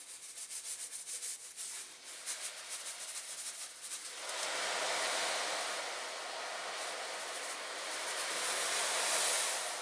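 Caustic soda granules rattling as they are tipped into a container of boiling water. About four seconds in, a steady fizzing hiss takes over and grows louder as the caustic solution reacts and starts stripping the paint off the diecast parts.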